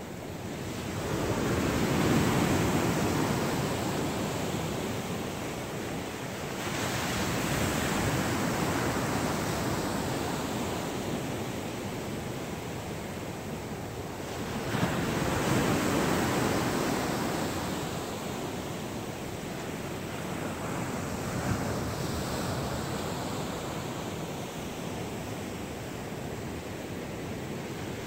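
Ocean surf: waves breaking and washing ashore in a steady rush. The surf swells up about a second in, again around seven seconds and around fifteen seconds, each time slowly ebbing.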